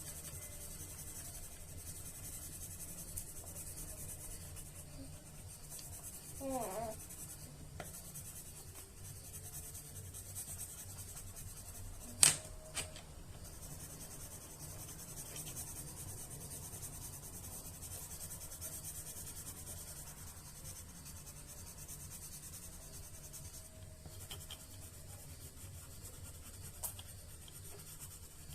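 Writing on paper, a soft steady scratching, with one sharp click about twelve seconds in.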